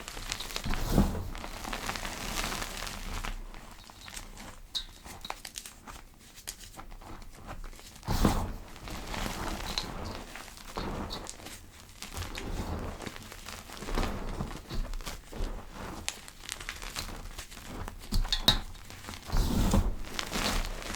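Soft powder being crushed and crumbled, giving an irregular run of soft crunches and crackles, with a handful of louder crunches spread through.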